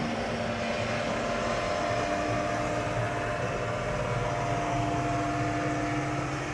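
Dynapac single-drum road roller's diesel engine running steadily, a constant mechanical drone with a few held tones over it.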